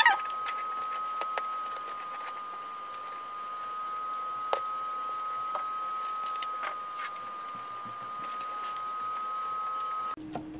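A steady high-pitched whine with a few light taps as dough is worked around a glass tea cup on a metal baking tray.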